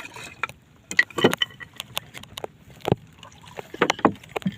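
A wooden sampan being handled in the water: irregular knocks and splashy thuds about once a second, with water noise between them.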